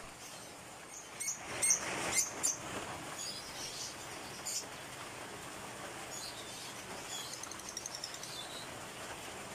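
Yellow-vented bulbul giving short, sharp, high chirps: a cluster of several about a second or two in and another a little before the middle. A quick run of fainter twittering notes follows in the second half.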